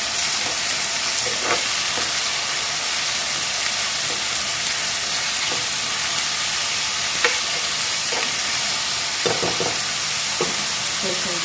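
Onions and green chillies sizzling steadily in hot oil in a kadai, with a few short scrapes and taps of stirring.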